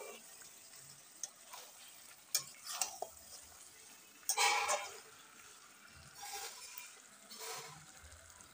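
A metal spatula stirring and scraping chicken masala around a metal kadai in irregular strokes, the loudest a longer scrape about four seconds in. Underneath is a faint sizzle of the masala frying in oil as it is bhuna-fried.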